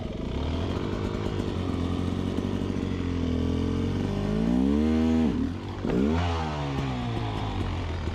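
Enduro dirt bike engine running at low revs, revved up briefly twice a little past the middle, the pitch rising and falling each time.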